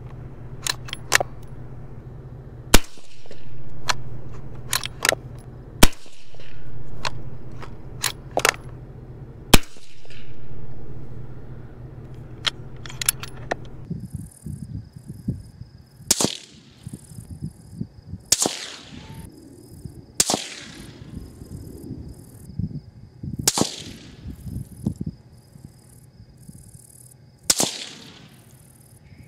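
Suppressed 6.5 Creedmoor bolt-action rifle fired three times, about three seconds apart, with lighter clicks of the bolt being worked between shots. About halfway through, the sound changes to five rifle shots heard from the target end, each a sharp crack with a fading tail, over a steady faint high tone.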